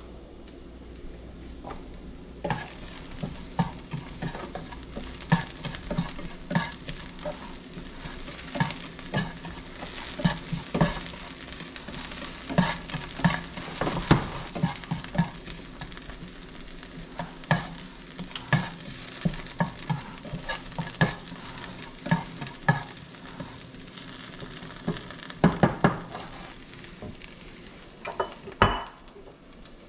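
Food frying in hot oil in a pan with a steady sizzle, while a utensil stirs it and clicks and scrapes against the pan many times from about two seconds in.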